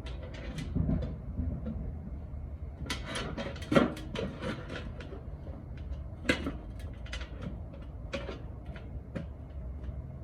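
Irregular clicks and knocks of a furnace blower motor, its mounting bracket and bolts being handled and fitted during reassembly, with a few louder knocks about 4 and 6 seconds in.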